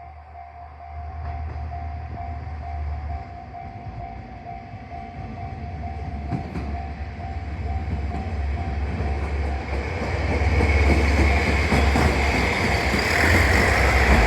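Level crossing bell ringing in steady regular strokes as a two-car 1200 and 1500 series diesel railcar set approaches. The train's engine and rail noise grow steadily louder and drown out the bell about ten seconds in, reaching their loudest as the train arrives at the crossing near the end.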